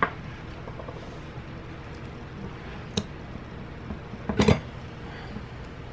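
Stainless steel cocktail shaker handled on a tabletop. A sharp knock comes at the start and a faint click about three seconds in, then a short cluster of metal knocks and clatter a little past four seconds as the cap is gripped and worked loose.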